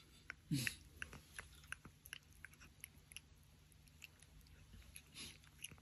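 A cat chewing and licking a small piece of feta cheese, with faint, quick wet clicks and smacks of its mouth.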